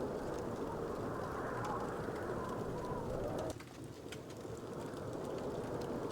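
Wood fire burning in a fireplace: a steady low roar with scattered small crackles and pops. About three and a half seconds in, the roar drops off suddenly and then slowly swells back.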